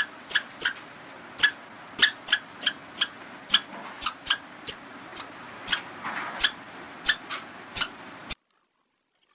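Squirrel calling: a run of short, sharp, chirping calls, roughly two or three a second at uneven spacing, over a faint hiss. The calls stop abruptly about eight seconds in.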